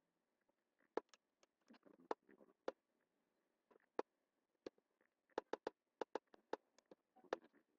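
Computer mouse buttons clicking: about fifteen faint, sharp single clicks, with a quick run of several about a quarter second apart past the middle, and some soft rustling between them.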